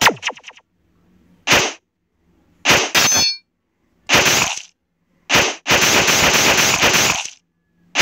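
Fight sound effects in a stick-figure animation: a string of sharp hits and clangs, one with a metallic ring about three seconds in, and a longer noisy burst lasting about a second and a half near six seconds in.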